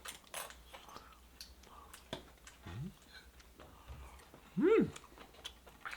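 A dog whining briefly, a faint rising whimper about halfway through and a louder rise-and-fall whine near the end, with faint clicks of eating and chopsticks.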